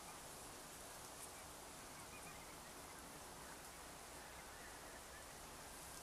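Near silence: a steady faint hiss with a few faint, distant bird calls.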